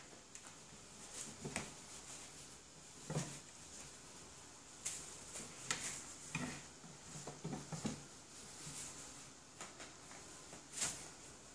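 Scattered light thumps, taps and rustles of Maine Coon kittens scrambling and pouncing on a wooden tabletop as they bat at a tinsel cat toy, busiest in the middle.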